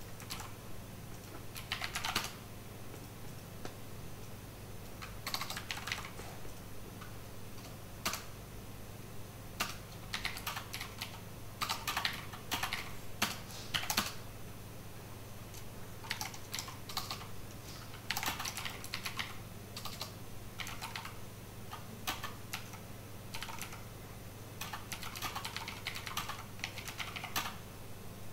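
Typing on a computer keyboard: irregular bursts of keystroke clicks with pauses between them, over a steady low hum.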